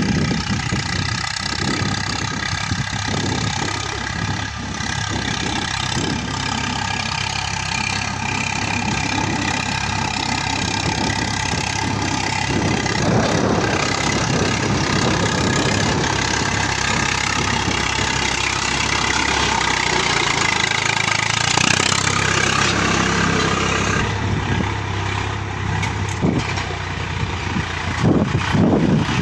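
Swaraj 855 FE tractor's three-cylinder diesel engine running steadily under load as it pulls a cultivator through ploughed soil.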